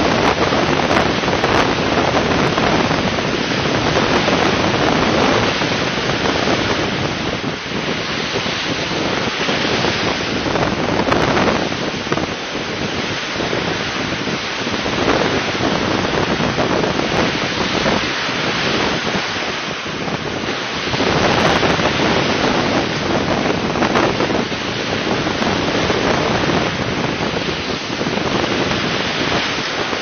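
Rough sea surf breaking on a shingle beach: a steady rush that swells and eases every few seconds as waves come in, with wind buffeting the microphone.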